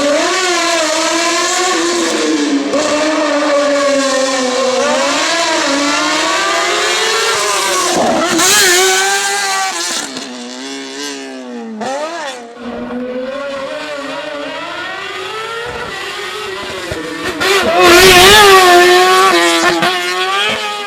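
Fiat 500 Maxi race car's two-cylinder engine at full effort, its pitch climbing and dropping again and again as the driver accelerates, changes gear and lifts off through the slalom. It is loudest in a burst about eight seconds in and again near the end.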